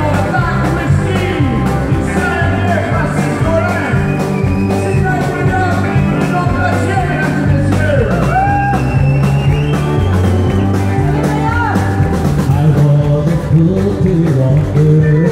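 Live country band playing: acoustic and electric guitars, bass and drums, with sliding, bending lead notes over a steady beat.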